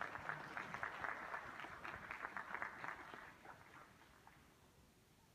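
Audience applause, thinning out and fading away about three and a half seconds in.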